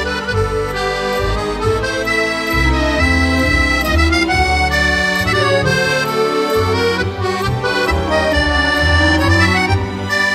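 Music led by an accordion, with held melody notes over a bass line that changes every second or so.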